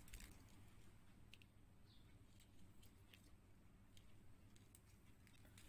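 Near silence, with a few faint scattered clicks of plastic beads knocking together as they are threaded onto nylon thread by hand.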